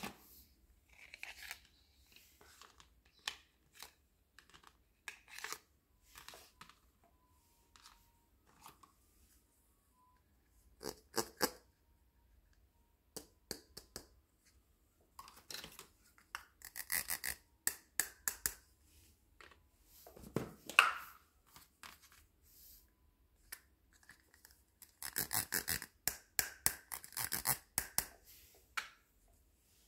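Hard plastic toy teacups and saucers clicking, tapping and scraping as they are handled and set down, in scattered clusters of small knocks, busiest near the end.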